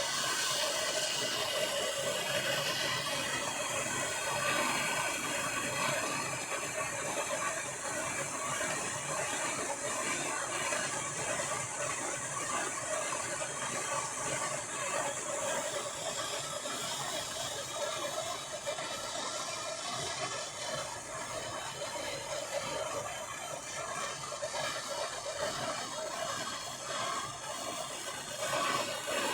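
Handheld gas blowtorch burning with a steady hiss, heating the seized fork damper bolt to free it.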